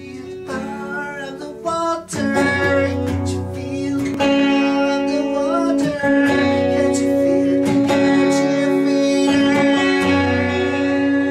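Intro music led by guitar, with sustained notes throughout.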